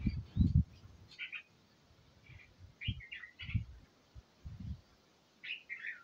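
Bulbuls at the nest giving short, soft chirps in small clusters several times, the busiest run about three seconds in, with a few low thumps.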